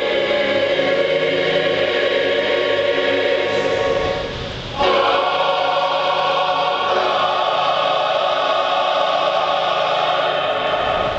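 Large mixed choir singing held, full chords. The sound drops briefly about four seconds in, between phrases, and then the next phrase enters at a higher pitch.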